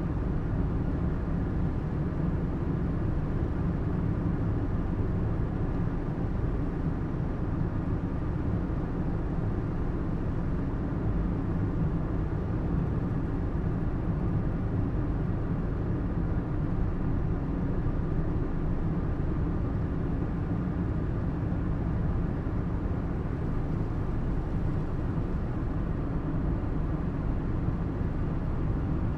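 Steady, unchanging drone of a running vehicle, a low rumble with no revving or change in level.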